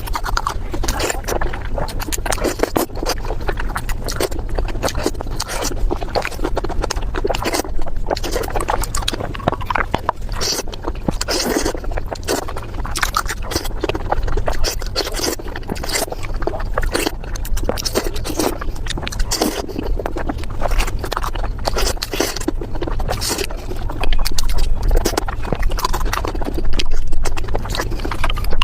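Close-miked mukbang eating: chewing and biting of food in a dense, continuous run of clicks and smacks, louder in stretches near the end.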